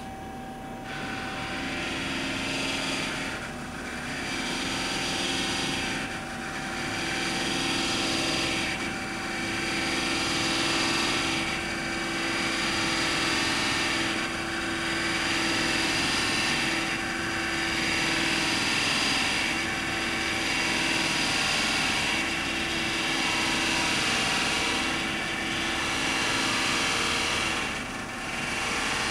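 Cincinnati No. 2 OM centerless grinder grinding a part on a through-feed pass with coolant flooding the wheels, a pass taking off ten thousandths: a steady grinding hiss over a machine hum. It starts about a second in and swells and eases about every two and a half seconds.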